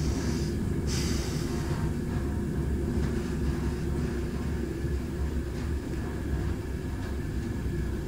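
Train running along the track: a steady low rumble of wheels on rails, with a brief hiss about a second in.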